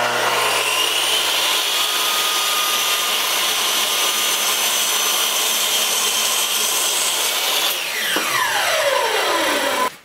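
Hitachi compound miter saw starting abruptly and running steadily while its blade cuts a miter through a poplar frame board. Near the end the trigger is released and the whine falls steadily in pitch as the blade spins down.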